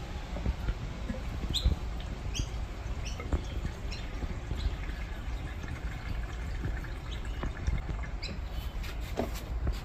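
Premixed two-stroke fuel being poured from a plastic jerry can through its spout into a small outboard motor's built-in fuel tank, with short high chirps coming and going over it.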